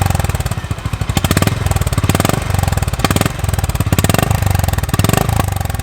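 Exhaust of a Honda H'ness CB350's single-cylinder engine running at varying revs, a quick even train of firing pulses that swells and eases as the throttle is opened and closed.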